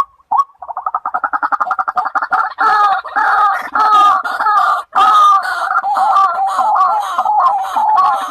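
White-breasted waterhen calling. Evenly spaced single notes quicken about half a second in into a fast run. The run builds into loud, continuous calling at two pitches, with a short break about five seconds in.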